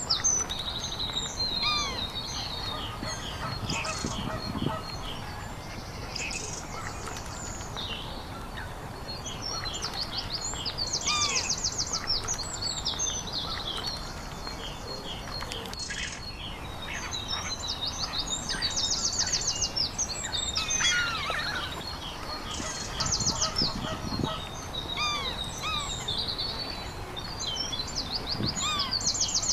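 Several wild birds singing at once, overlapping chirps and whistles with fast, high trills recurring every few seconds, over a steady low background rumble.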